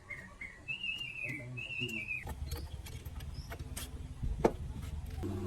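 A high, wavering whistle for about two seconds, then scattered clicks and a sharp knock. Just before the end an engine starts up and runs steadily.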